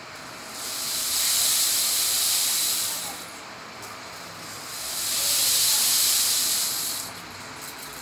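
Homemade rain stick made from recycled materials, tipped over twice: two long rushing hisses of falling filling, each about two and a half seconds, swelling and then fading away.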